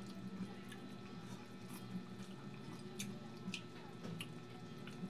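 Wet eating sounds from close to the microphone: scattered sharp lip smacks and sticky clicks of chewing and finger-licking, about one every half second to a second.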